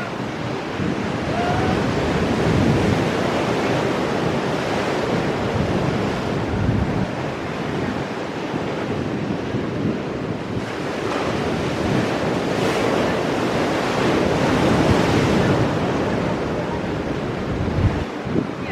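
Ocean waves breaking and washing over rocks, the surf swelling and easing every few seconds, with wind buffeting the microphone.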